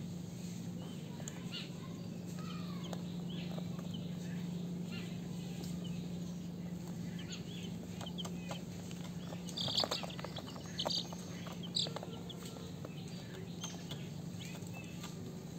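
Young chicks peeping in short high calls, the loudest few coming about ten and twelve seconds in, over a steady low hum.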